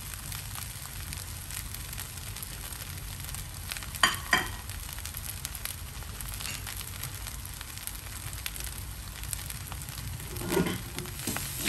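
Fried quinoa sizzling steadily in a wok, with two sharp clicks about four seconds in and a dull knock near the end.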